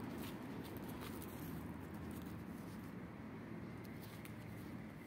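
Faint scattered scratches and ticks of a kitten's paws scratching at dry dirt, over a steady low background rumble.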